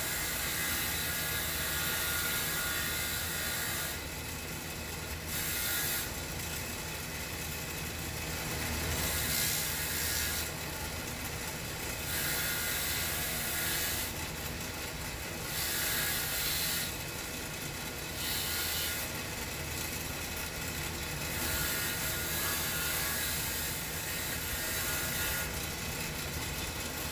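Bench grinder with a wire wheel running steadily while a steel bolt is pressed against the spinning wire brush again and again, giving a harsh scraping hiss that comes and goes every second or two. The wire brush is scouring the bolt clean.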